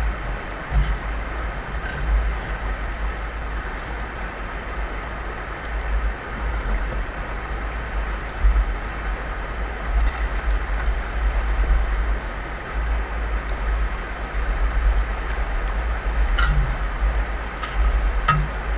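Rushing mountain stream running over rocks, a steady wash of water noise, with gusts of wind rumbling on the microphone.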